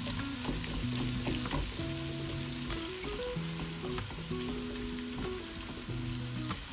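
Onions, green chilies, curry leaves and pandan leaves sizzling as they fry in oil and melted butter in a pan, stirred now and then with short taps and scrapes of a utensil, over soft background music.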